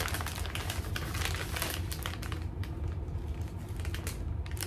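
Plastic snack pouches crinkling as they are handled and shuffled, a continuous irregular crackle.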